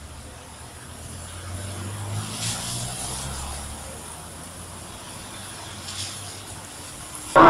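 Heavy military vehicles, an eight-wheeled armored personnel carrier and an army truck, driving past with a low engine rumble that swells and then eases off. Loud music cuts in at the very end.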